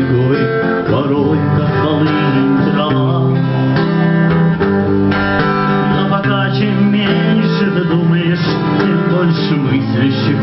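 Instrumental music: an acoustic guitar strumming chords while a violin plays a wavering melody over them.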